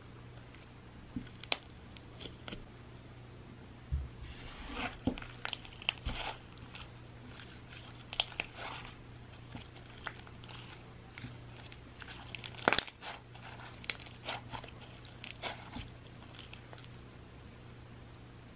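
Green slime full of finely ground crunchy beads being poked, squeezed and stretched by hand, giving irregular crackles, pops and clicks in scattered clusters.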